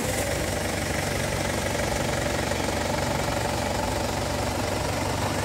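Ford Everest TDI turbodiesel engine idling steadily, just after being started.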